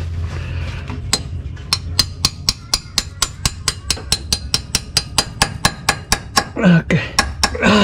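Rapid, steady hammer blows on a pin, about four to five strikes a second. They drive grease packed behind a clutch spigot (pilot) bearing so that the pressure pushes the bearing out of the crankshaft end.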